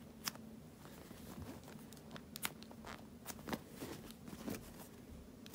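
Hand rummaging through a drawer full of foam squishy toys: faint rustling with a few scattered light clicks and taps.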